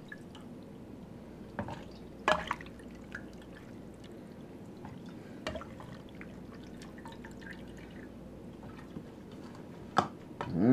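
Chicken bone broth and bones being ladled out of a slow-cooker crock into a strainer: liquid dripping and splashing, with scattered sharp clinks of the ladle against the crock, the loudest about two seconds in and another near the end.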